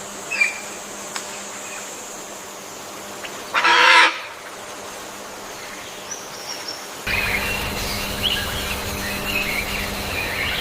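A single loud animal call, about half a second long, about four seconds in. From about seven seconds on there is a steady outdoor background with scattered bird chirps.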